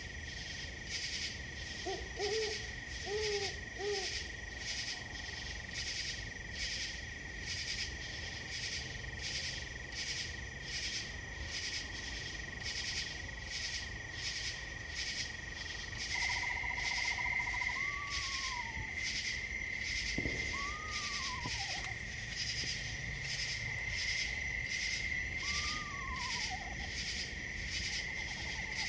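Night chorus of insects: a steady high trill, louder from about halfway, and a pulsing call about twice a second. About two seconds in come four short owl hoots, and in the second half three longer arching calls.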